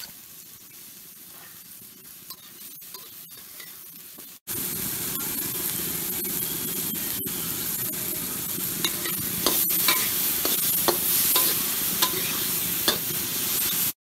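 Cicadas and garlic frying in hot oil in a wok: a steady sizzle, quiet at first and much louder from about four seconds in, with scattered sharp ticks.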